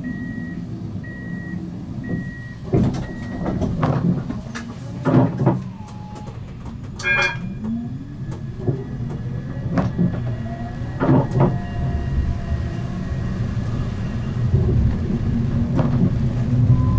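Siemens Avenio low-floor tram: a high beep repeating on and off for the first few seconds, the warning of its doors closing. It then pulls away, its electric traction motors whining up in pitch, with scattered knocks and clunks from the running gear on the track.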